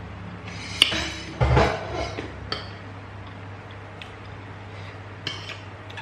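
Spoon and dishes clinking while eating from a plate: a sharp clink about a second in, a louder clatter just after, then a few lighter clinks, over a steady low hum.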